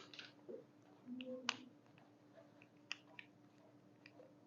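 Near silence: a low steady hum with a few faint, sharp clicks scattered through it.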